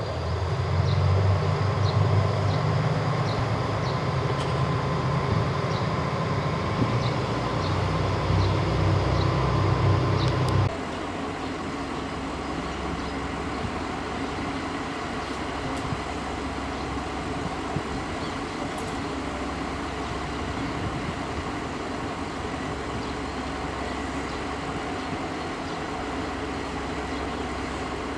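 JR Shikoku 2000 series diesel railcar running past close by, its diesel engines giving a loud, steady low drone. About ten seconds in, the sound drops suddenly to a quieter, even rumble as the train runs in farther off.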